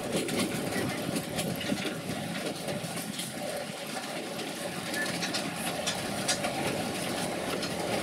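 600 mm narrow-gauge train running: a steady rumble with scattered light clicks and rattles.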